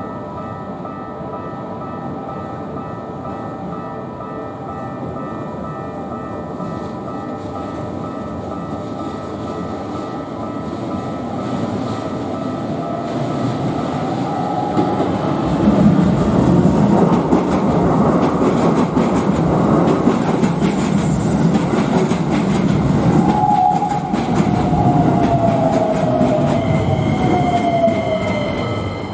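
Japanese level-crossing alarm ringing steadily while a Keikyu train approaches and runs through the crossing. The wheel rumble and clatter grow louder from about halfway, and near the end an electric whine falls in pitch.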